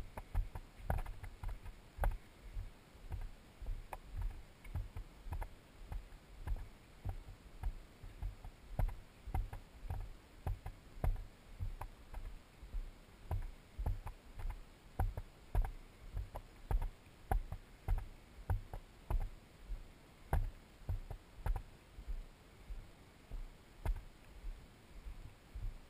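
Footsteps of a hiker walking on a dirt trail, a steady rhythm of low thumps about twice a second, each with a light crunch or click, picked up by a camera carried on the walker.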